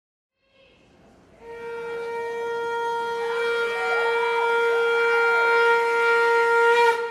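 Recorded Bollywood medley music opening with one long held note that fades in about a second in and keeps growing louder, with brief gliding ornaments above it midway, cut off sharply near the end.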